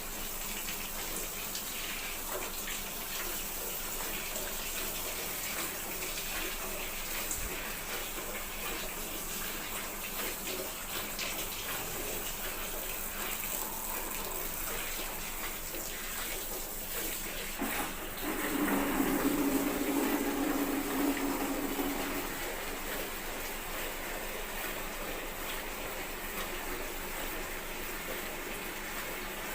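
Cow being milked by hand, milk squirting steadily into a pail. About two-thirds of the way through, a louder low-pitched sound lasts a few seconds.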